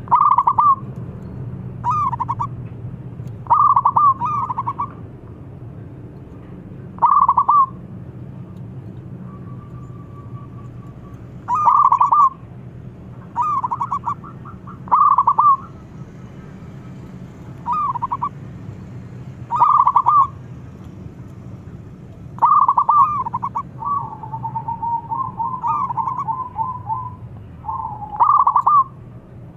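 Zebra dove (perkutut) cooing: short rippling call phrases repeated every one to three seconds, with a longer run of rapid stuttering notes near the end, over a low steady hum.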